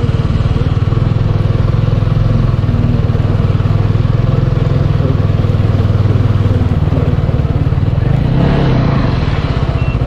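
Motorcycle engine running steadily under way, heard from on the bike, easing off slightly near the end.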